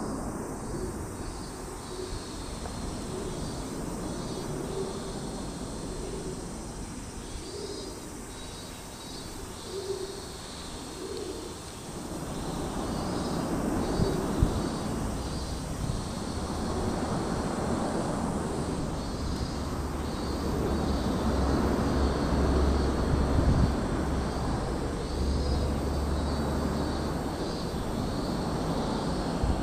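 Outdoor ambience. A low cooing bird call repeats through the first dozen seconds, over high chirps that keep on repeating. About twelve seconds in, a broad low rumble swells and stays to the end.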